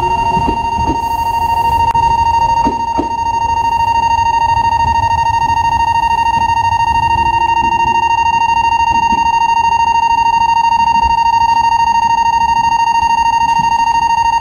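An electric bell rings without a break, one high steady tone with overtones. For the first three seconds the departing Meitetsu express's motors whine under it, rising in pitch, then fade as the train pulls away.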